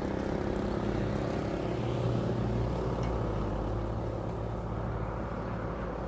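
An engine running steadily at an even speed.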